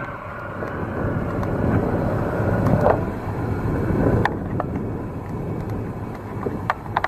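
Steady low rumbling noise of wind buffeting the microphone in open country, swelling a little and then easing, with a few faint clicks near the end.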